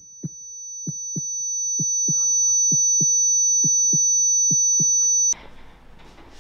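Heartbeat sound effect: slow paired lub-dub thumps about once a second, under a steady high-pitched ringing tone that swells in and cuts off suddenly near the end.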